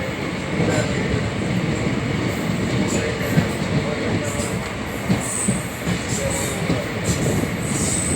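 ICF passenger coach running along the track, heard from aboard: a steady rumble of wheels on rails with scattered knocks over the joints, and brief high wheel squeals from about four seconds in.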